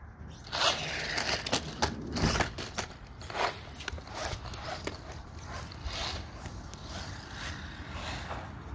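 RC car driving off, its motor and tyres making a scraping, crackling noise that starts about half a second in and gets quieter as the car moves away over grass and concrete.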